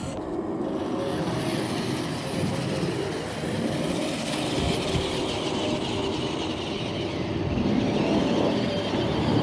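Radio-controlled model Volvo A40G articulated dump truck driving across gravel, its motor and drivetrain running with a steady mechanical sound.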